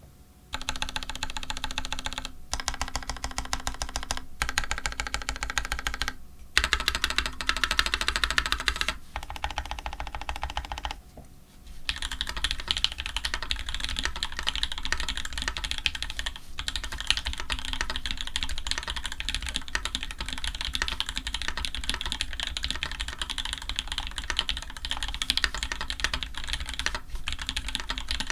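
Fast typing on a custom Orion v2.5 mechanical keyboard with lubed Tangerine linear switches, GMK keycaps and an aluminium plate. It comes in several bursts with short pauses over the first eleven seconds, then runs on as continuous typing.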